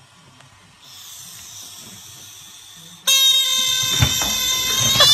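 Air escaping through the stretched neck of a balloon. A soft hiss first, then about three seconds in a loud, steady, high squeal, with a knock about a second after the squeal begins.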